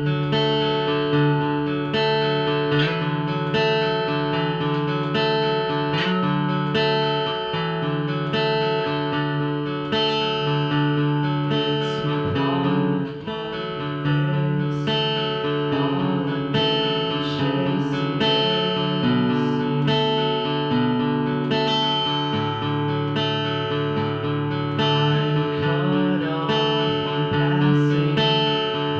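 Acoustic guitar playing a song, chords strummed in a steady rhythm and changing every second or two.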